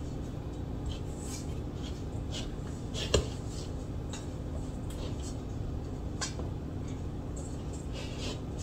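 Hands kneading bread dough in a metal mixing bowl: repeated soft scuffs and pats of the dough against the bowl, with one sharper knock of the bowl about three seconds in.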